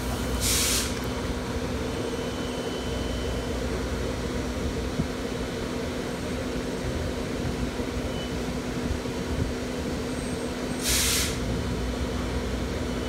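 Steady machinery hum over a low rumble, broken twice by a short burst of hiss, once just after the start and again about eleven seconds in.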